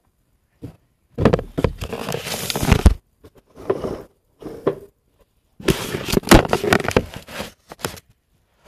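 Handling noise from the camera being picked up and moved about: rubbing, scraping and many sharp clicks close to the microphone, in two loud stretches, about a second in and again a little before six seconds, with a few small knocks between them.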